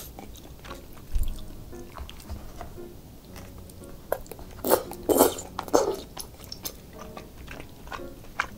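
Close-miked eating of spicy cheese tteokbokki with chopsticks: wet chewing of the chewy rice cakes, with a run of loud slurps a little past halfway as a piece is sucked in.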